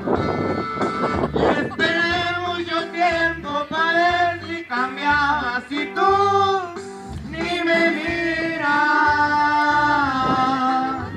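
Two men singing a Mexican regional song live with instrumental backing, amplified through PA loudspeakers. The sung melody comes in about two seconds in, with long held notes.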